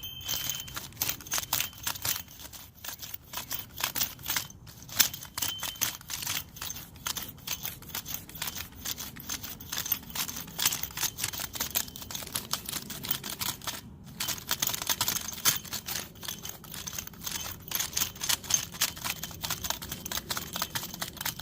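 Garden weasel cultivator's rotating tines being worked back and forth through the soil: a rapid, irregular run of gritty scratching and clicking, with a brief pause about two-thirds of the way through.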